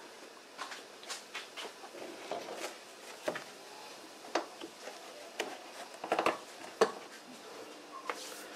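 Hands fitting the plastic cabin air-intake duct under a Mercedes W210's hood: scattered light clicks and taps of plastic being handled and pressed into place, with a few sharper knocks in the second half.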